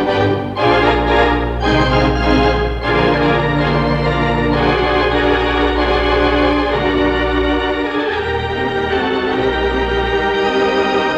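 Four-manual, 14-rank Wurlitzer theatre organ of the Gaumont Manchester playing held chords over a deep pedal bass. It is heard through an off-air 1960s mono tape recording of the radio broadcast.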